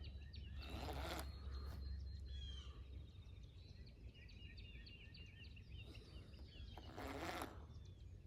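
Small birds chirping in quick repeated short notes, with two brief rushes of noise, one about a second in and one near the end, and a low rumble that fades out about three seconds in.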